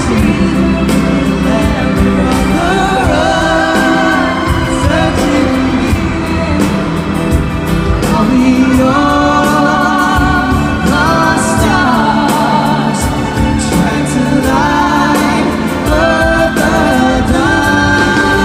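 Live pop duet: a man and a woman singing a ballad over a backing band, heard from the audience in a concert hall.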